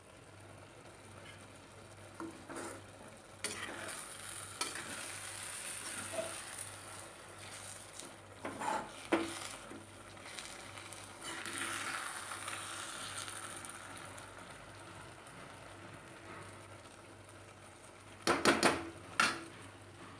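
Maggi noodles sizzling in a black kadai on a gas stove, stirred and scraped with a metal slotted spoon. A few sharp metal knocks near the end, as the spoon strikes the pan.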